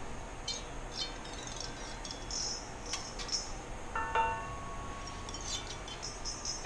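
Light metallic clinks and tinkles, with one clear ringing ping about four seconds in, from the newly hung aircraft engine and its mounting hardware as it is jiggled. The ringing is chime-like.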